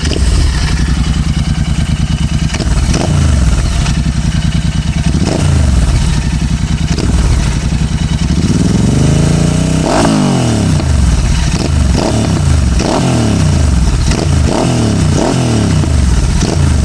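Royal Enfield Interceptor 650's parallel-twin engine revved at a standstill through twin Barrel Atom stainless slip-on exhausts with the dB killers removed. A few short throttle blips from idle are followed by a longer, higher rev about nine seconds in, then a quick run of blips.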